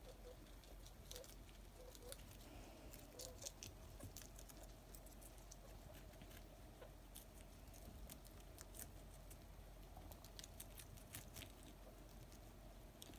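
Faint, scattered little crunches and clicks of guinea pigs, a mother and her four-day-old pups, nibbling romaine lettuce and pepper and moving about on fleece; the clicks come thickest in the first few seconds and again a little before the end.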